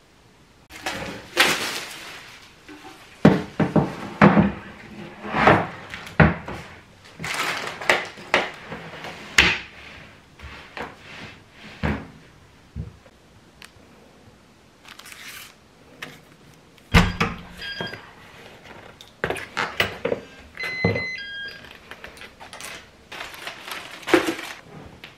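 A string of household handling sounds: thunks and knocks of objects being moved and set down on hard surfaces, with short rustles between them and a few brief high-pitched tones about four-fifths of the way through.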